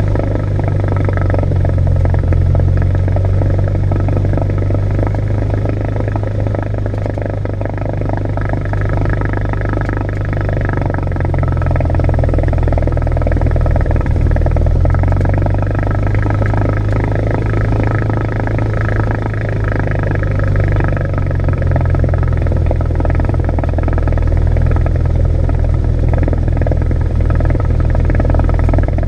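Cessna 172's piston engine and propeller running at low taxi power, heard from inside the cockpit: a steady low drone whose pitch shifts slightly a few times as the throttle is adjusted.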